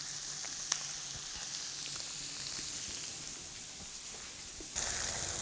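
Steaks searing in hot butter in a skillet: a steady sizzle with scattered small pops, growing louder and more crackly near the end. This is the final sear on steaks already cooked sous vide.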